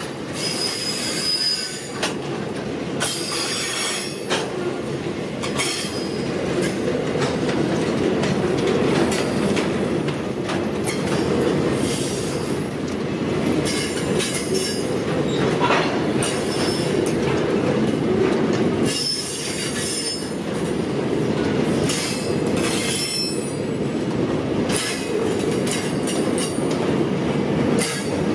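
Freight train wagons rolling past close by: a steady rumble of steel wheels on rail, broken by intermittent high-pitched wheel squeal and sharp clacks from the wheels.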